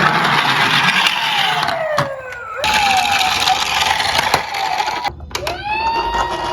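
Toy ambulance siren: a wail that winds down in pitch, breaks off, and after a short gap winds back up to a steady tone near the end, over a rough hiss with a few clicks.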